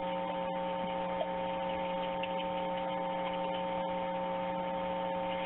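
A steady electronic hum of several fixed pitches held on a telephone-quality call recording, with a faint hiss.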